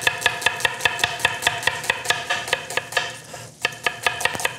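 Chef's knife slicing an onion thinly on a wooden cutting board: quick, even taps of the blade on the board, about four or five a second, with a brief pause about three and a half seconds in.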